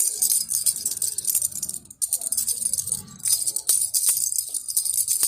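Plastic baby rattle shaken steadily: a dense, high rattling of beads, stopping briefly about two seconds in before going on.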